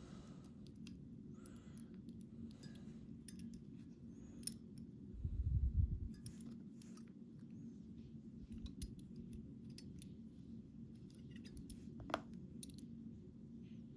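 Faint small metallic clicks and scrapes of a thin shim being worked into the gap around a lock cylinder's plug, with a low bump about five seconds in and a sharper click near the end. A steady low hum runs underneath.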